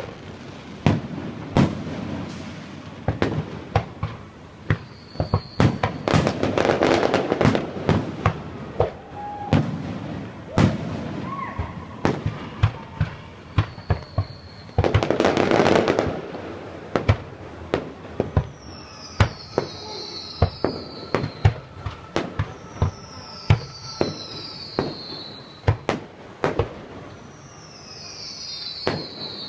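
Fireworks display: a steady run of sharp booms from bursting aerial shells. There are two dense, sustained bursts about seven and fifteen seconds in, and three falling whistles near the end.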